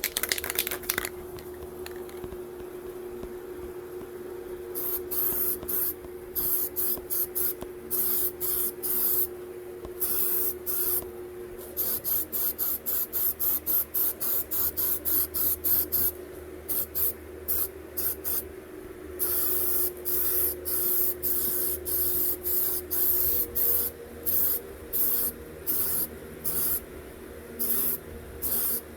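Paint spray gun spraying primer in many short trigger pulls, each a burst of hissing air lasting up to about a second, starting about five seconds in. A steady hum runs underneath.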